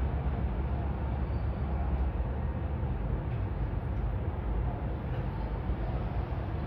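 Steady low rumble of outdoor background noise, even and unbroken, with no distinct events standing out.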